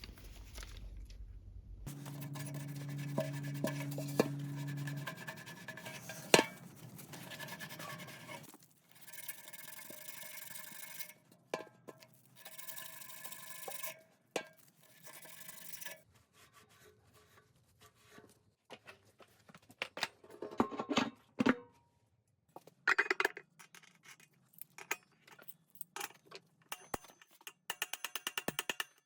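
Hand-work noises: scrapes, clinks and clicks, in short stretches that start and stop abruptly, with a low steady hum for about three seconds near the start.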